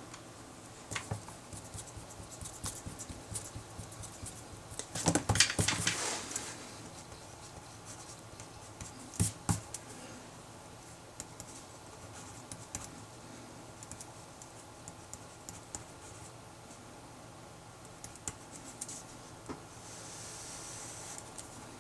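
Pen writing on paper: scattered light taps and scratches, with a louder flurry of clicks about five seconds in, a shorter one near nine seconds, and a soft scratching stroke near the end.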